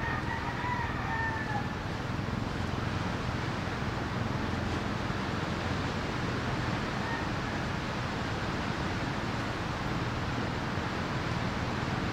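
A single long animal call of about two seconds at the start, slightly falling in pitch, over a steady background hiss.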